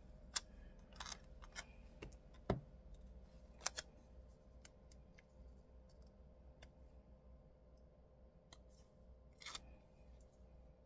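Faint scattered crinkles and clicks of a clear plastic quote sticker being handled and pressed down onto a paper planner page, with a few sharper taps now and then.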